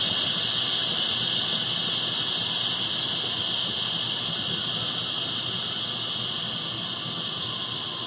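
Steam hissing out of a Tupperware microwave pressure cooker's release valve as it is vented by hand to let the pressure down after cooking. A steady hiss that slowly gets quieter as the pressure drops.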